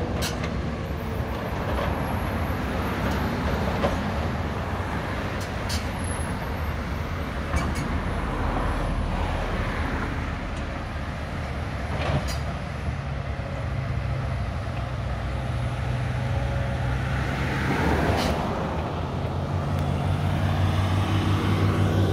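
Heavy diesel engines running, from construction machinery and road vehicles, with scattered sharp knocks. A deeper engine drone sets in about halfway through and grows louder toward the end.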